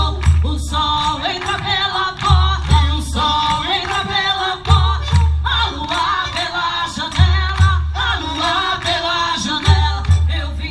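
Music: voices singing a melody together over a low drum beat that falls in pairs about every two and a half seconds.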